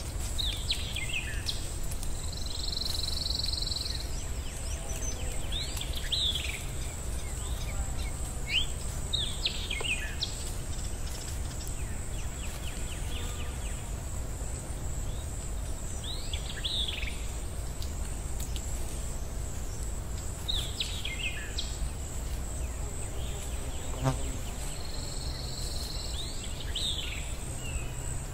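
Nature ambience: birds calling in short downward-sweeping chirps every few seconds, over a steady high-pitched insect drone and a low rumble.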